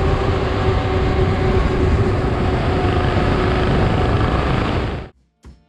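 Motorcycle cruising at road speed: a steady engine drone under heavy wind and road noise. It cuts off abruptly about five seconds in.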